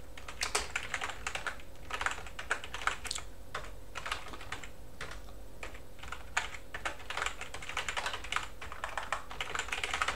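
Typing on a computer keyboard in quick bursts of keystrokes with short pauses between, the longest run in the last few seconds.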